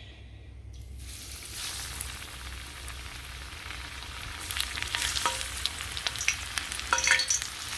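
Breaded fish fingers sizzling and crackling as they are shallow-fried in hot oil in a cast iron skillet. The sizzle starts about a second in as the first piece goes into the oil and grows louder a few seconds later as a second piece is added.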